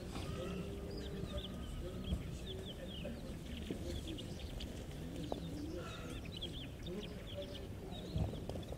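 Chickens clucking low and softly, over a constant chatter of many short, high chirps.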